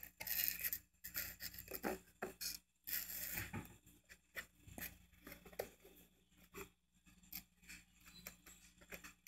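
Faint, irregular rustling and scratching with scattered clicks close to the microphone: handling noise.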